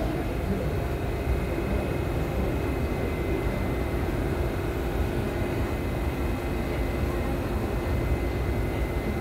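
Steady hum and rush of a Thomson–East Coast Line CT251 metro train standing at a platform with its doors open, heard from inside the car.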